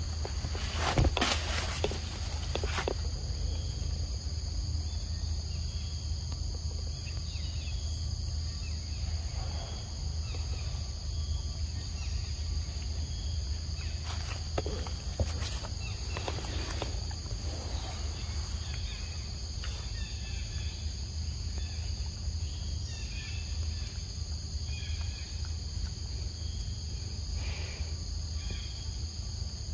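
Steady outdoor insect chorus, several high droning tones held throughout, over a steady low hum, with scattered faint chirps. A few short noises stand out, the loudest about a second in and a cluster around the middle.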